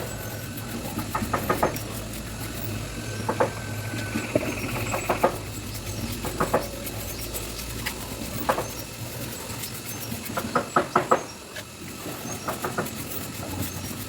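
Hand-carving tools working ironwood: short bursts of quick, sharp taps every second or two, over a steady low hum.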